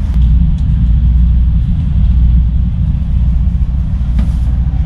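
Steady low rumble of the Starlite Pioneer passenger ferry's engines running, heard on the open deck, with a single faint click about four seconds in.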